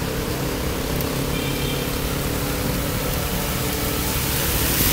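Steady rushing noise of wind over the microphone and bike tyres hissing on a rain-soaked road while riding, with a faint low hum underneath; the hiss swells near the end.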